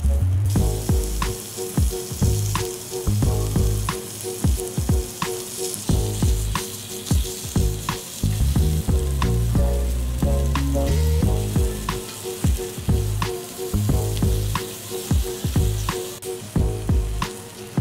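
Lamb ribs sizzling on a dome grill over charcoal, a steady frying hiss. Background music with a bass line and a steady beat plays underneath.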